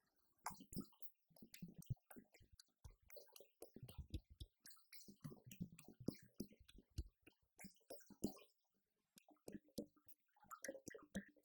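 An electronic drum kit being played: a quick, irregular run of faint drumstick strokes, low thumps mixed with sharp clicks, with a brief gap about a second before the end.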